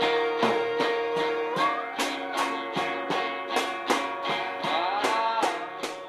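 End-credits music: guitar strummed at a steady beat, with a long held note that slides upward about a second and a half in, and another upward slide near the end.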